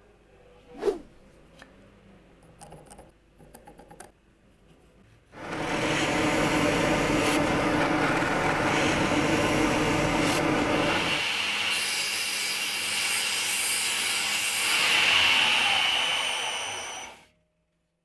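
A sharp knock about a second in. Then a drill press starts up and bores into a hardwood block with a loud, rough cutting noise. Near the middle the noise changes to a higher, hissier machining sound, which stops suddenly.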